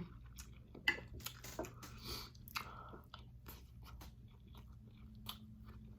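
A person chewing chicken wings close to the microphone: faint crunches and wet mouth clicks, busiest in the first half, then quieter.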